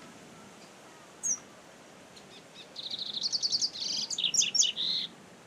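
Double-collared seedeater (coleiro, Sporophila caerulescens) singing: a single short high note about a second in, then a fast run of rapid, high twittering notes lasting about two seconds.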